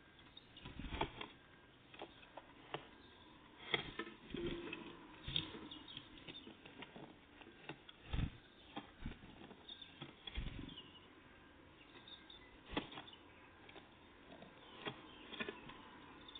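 Great tits and blue tits at a peanut feeder: brief wing flutters and taps come and go, with a few low flutters louder than the rest, and faint short high chirps between them.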